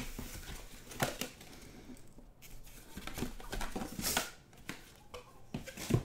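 A cardboard Topps Luminaries card box being slid out of its sleeve and handled: cardboard scraping and rustling, with four sharp knocks, the last near the end as the box is set down.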